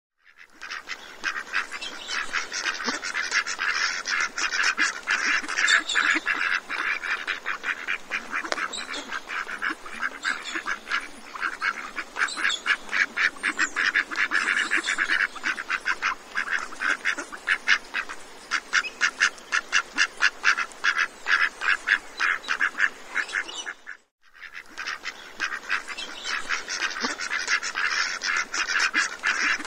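A large flock of ducks calling all at once in a dense, rapid chatter of overlapping quacks. The sound drops out briefly about 24 seconds in, then starts again.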